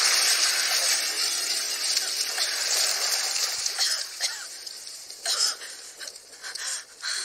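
Water splashing and pouring off a person hauled out of a swimming pool, a loud rushing for the first few seconds, then dying down into short scattered gasps and coughs.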